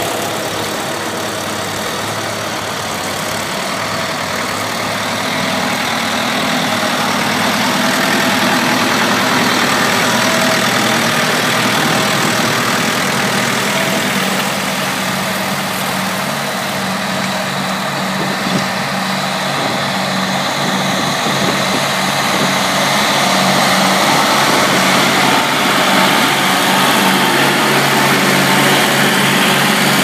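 Doe tandem tractor's twin diesel engines running steadily under load as it pulls a plough through heavy soil, growing louder over the last several seconds.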